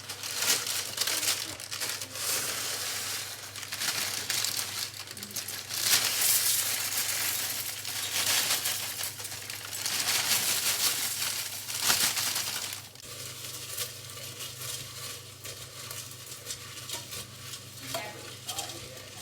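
Cornflakes being stirred into a pot of melted butter and sugar, a dense crunchy crackling that swells and eases several times, then turns quieter about two-thirds of the way through.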